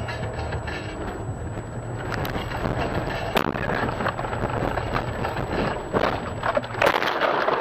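A car running off a snowy road into deep roadside snow: a steady rumble of engine and tyres, with snow and brush knocking and crunching against the body from about two seconds in. A loud crunch comes near the end.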